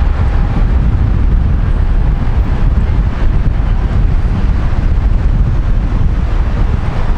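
Airbus A320neo jet engines at takeoff power: a steady, loud, deep rumble, with wind buffeting the microphone.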